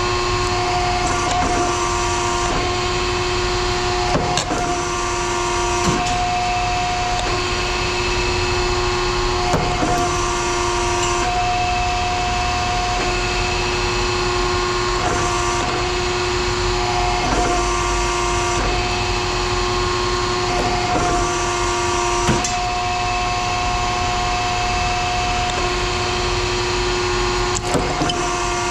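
Steady machine noise with a humming tone that cuts in and out every second or two, and a few sharp clicks.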